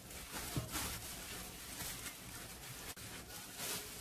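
Gloved hand rubbing spice marinade into raw chicken pieces in a steel bowl: wet squishing with plastic-glove crinkle, coming in a few short spells.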